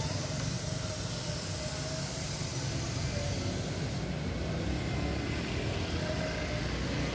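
Road traffic: a motor vehicle's engine running, a steady low rumble with hiss.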